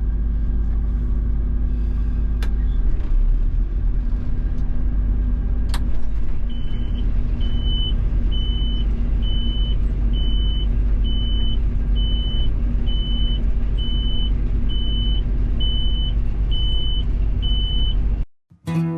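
Combine harvester running with the soybean head engaged: a steady low rumble and hum from the engine and threshing machinery. From about six seconds in, a high-pitched warning beep repeats about once a second.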